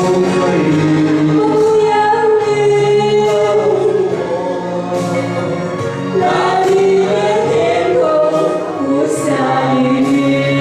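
Song with singing voices holding long, wavering notes over a steady instrumental accompaniment.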